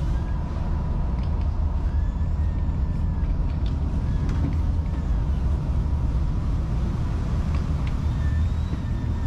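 A boat's engine running steadily at sea: a continuous low rumble with a faint constant whine over it.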